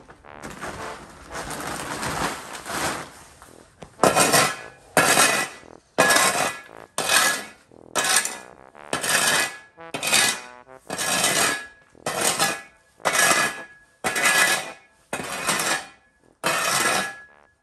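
Metal spade scraping spilled grain feed across a concrete floor: one long scrape, then steady strokes about one a second.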